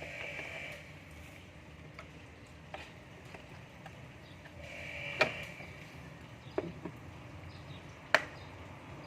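Scattered sharp knocks and clicks, about five over nine seconds, the loudest about five seconds in and another near the end, over a low steady background.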